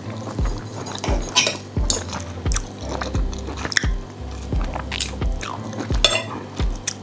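Metal knife and fork scraping and clinking against a ceramic plate while slicing roast lamb, in a string of sharp, irregular scrapes and taps.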